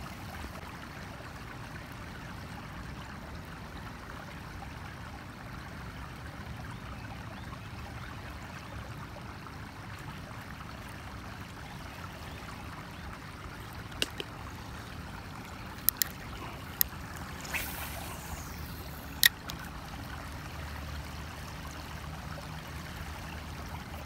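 River water flowing along the bank, a steady even rush. A few sharp clicks and taps come in the second half.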